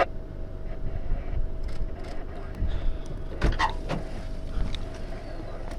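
Steady low rumble of a car with its windows open, a faint steady hum under it and a few scattered knocks and clicks, the loudest about three and a half seconds in.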